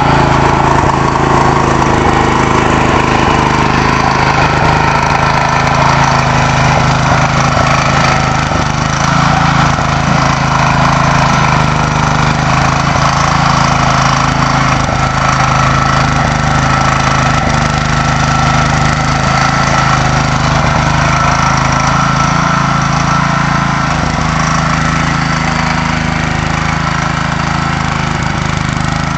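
Bobcat 371 mini skid steer's 14 hp engine running steadily at a constant speed.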